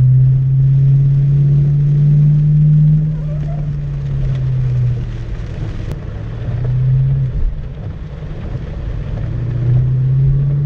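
A 2004 Ford Mustang GT's 4.6-litre two-valve V8 is heard from inside the cabin, held at steady low revs for about five seconds while the learner tries to get the manual car moving. It then falls away, rises briefly about seven seconds in, and comes back up near the end.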